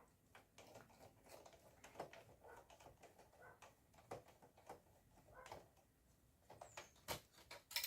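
Faint clicks and taps of a screwdriver working the screw that secures a desktop PC's optical (CD-ROM) drive, with a couple of sharper clicks near the end, over near silence.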